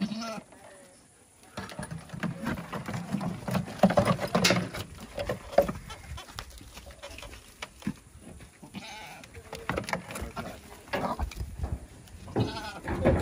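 Nigerian Dwarf goats bleating several times, with wavering calls clearest in the second half, mixed with some knocking and scuffling.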